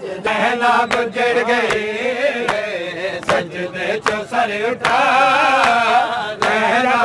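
Male voices chanting a Punjabi noha refrain in a mourning lament, with irregular sharp strikes of matam over the chant.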